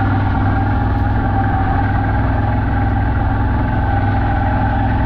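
CFMoto 1000 utility vehicle's V-twin engine running steadily as it drives.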